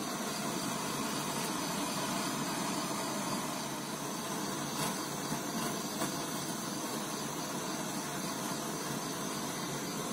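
Butane torch on a gas canister burning with a steady hissing flame, heating a small knife-lock part held in pliers. The lock is too small for the usual heat treatment, so it is hardened in the torch flame.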